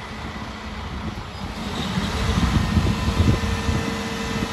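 The engine of a truck-mounted Fassi knuckle-boom crane is running as the crane works, a low rumble that grows louder about two seconds in. A steady whine joins in at about the same point.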